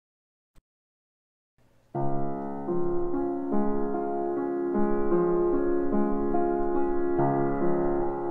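Grand piano playing sustained chords and a melody, starting about two seconds in after a silent gap, recorded with a pair of Behringer C-2 small-diaphragm condenser microphones.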